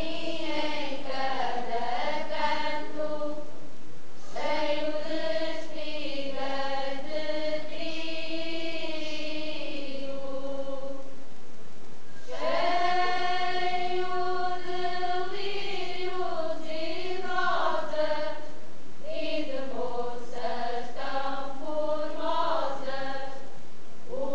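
Folk choir of mostly women's voices singing an Alentejo song together in long held phrases, breaking off briefly between phrases about four, eleven and nineteen seconds in.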